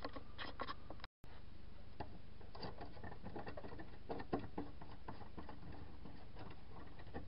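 Scattered light clicks and taps of plastic C-size battery holders with metal contact clips being handled, over a steady low background hum, with a brief dropout about a second in.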